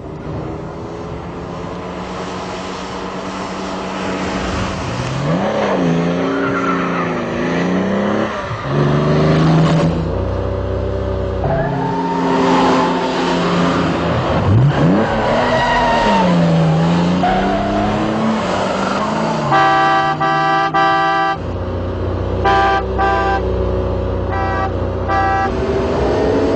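Two sports cars, an Aston Martin DB5 and a Ford Mustang, driving hard, their engines revving up and down through gear changes. About twenty seconds in a car horn sounds for over a second, then several short toots follow.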